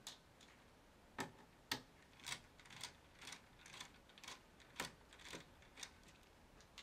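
Small screwdriver backing screws out of the plastic underside of an Asus G73J laptop: a run of clicks, about two a second, starting about a second in.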